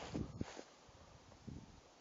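Footsteps in snow: a few soft steps in the first half-second and one more about a second and a half in.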